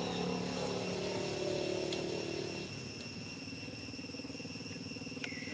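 A motor vehicle's engine running in the background, dropping to a lower pitch a little over halfway through. Behind it is a steady high insect drone.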